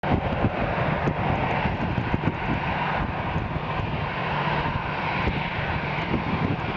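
Boeing 777 airliner's jet engines on approach to land, a steady noise with a low rumble.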